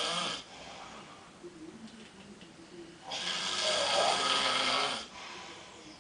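A man snoring heavily in a drunken sleep: the end of one loud snore right at the start, then a quieter stretch, then one loud snore of about two seconds just past the middle.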